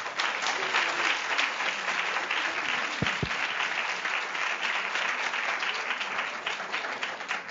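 Audience applauding, starting suddenly and thinning out near the end, with a brief low double thump about three seconds in.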